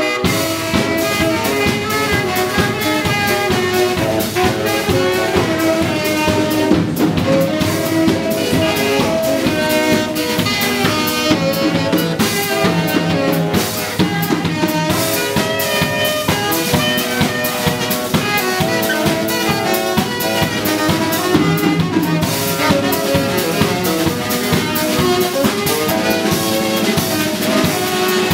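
Live band music from two saxophones and a drum kit: the horns play melodic lines over a steady drum beat.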